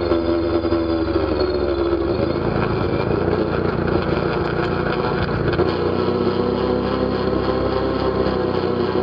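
ATV engine running steadily, its pitch shifting a little a couple of times.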